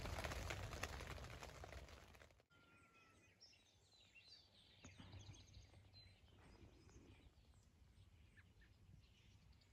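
Rain falling on a tent, fading out over the first two seconds; then near silence with faint, scattered bird chirps.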